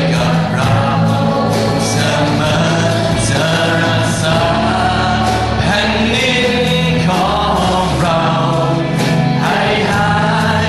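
Live worship band music with drums, cymbals and steady bass, with voices singing over it.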